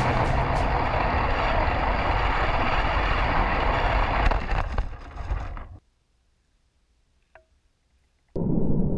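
Motor and wheels of a Lego train rumbling and rattling along plastic track, heard from a camera riding on the train, with a few sharp knocks about halfway as the sound fades out. After a couple of seconds of near silence, a duller rumble comes back abruptly near the end.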